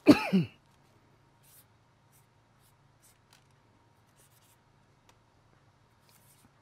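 A short, loud burst from a man's voice right at the start, falling in pitch, then faint scattered scratches of a marker pen writing on the top of a firework cake.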